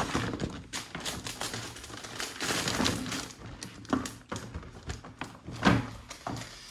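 A wrapped present being opened: crinkly rustling of the wrapping, then two sharper knocks, the second the loudest.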